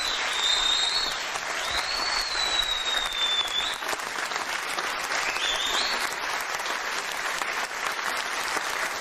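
Studio audience applauding steadily, with a few high whistles over the clapping during the first half.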